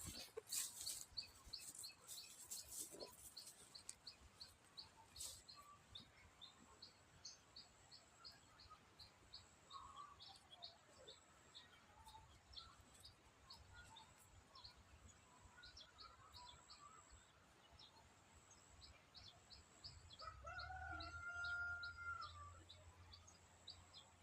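Faint birdsong: short high chirps repeating two or three times a second. Near the end comes a longer held call, typical of a rooster crowing, over a low hum.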